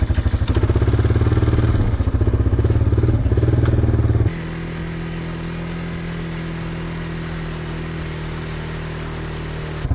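Honda ATV's single-cylinder four-stroke engine running as the quad rides along in low gear, loud and pulsing. About four seconds in it drops suddenly to a quieter, steady drone.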